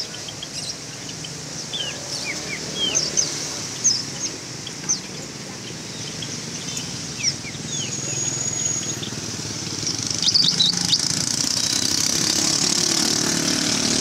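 Many caged songbirds chirping and calling in short, quick, often down-slurred notes, with one held high whistle about eight seconds in. A low traffic rumble runs underneath, and from about ten seconds in a loud, steady high hiss builds up.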